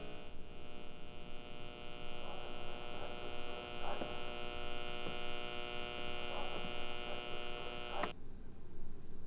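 Steady electrical hum made of many layered tones, with a few faint ticks along the way. About eight seconds in it is cut off abruptly by a sharp click.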